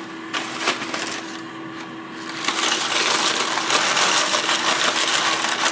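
Dry chickpea penne pasta being poured out, with a few light clicks at first and then a dense, continuous rattle from about two and a half seconds in.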